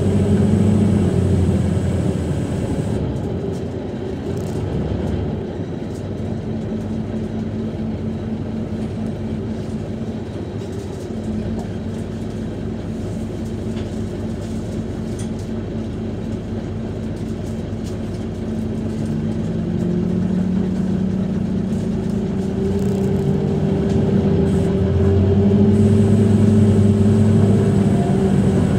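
Scania K230UB bus's five-cylinder Scania DC9-16-230 engine, driving through a ZF 6HP504C automatic gearbox, heard from on board. The engine note drops away after a couple of seconds and runs lower and steadier through the middle. From about twenty seconds in it rises and grows louder again.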